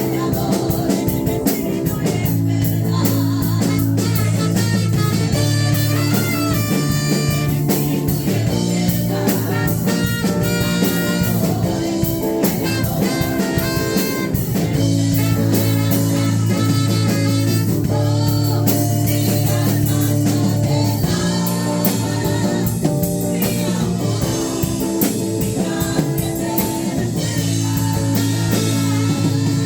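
Praise-and-worship music: a band playing with a steady beat and sustained low notes.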